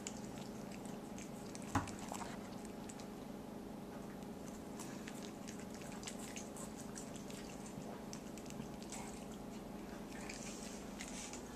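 A cat chewing and licking up small pieces of cooked fish from a wooden tabletop: soft, faint wet clicks of eating over a steady hum, with one sharp knock about two seconds in.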